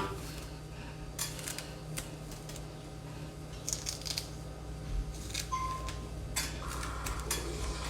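Faint scattered clicks and light handling sounds of small objects over a low steady hum, with a couple of brief faint tones past the middle.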